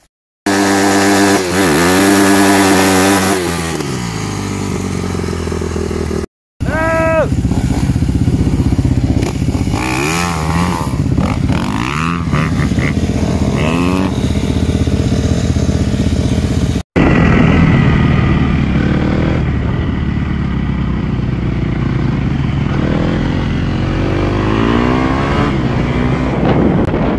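Four-stroke 250 dirt bike engines running and revving, the pitch rising and falling repeatedly, across three clips cut together.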